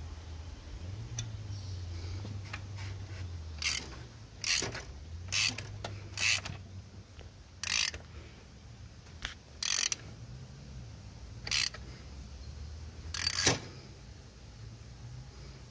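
Ratchet wrench clicking in about nine short strokes a second or so apart, turning the alternator belt adjuster on a Mercedes W123 diesel to tension the belt.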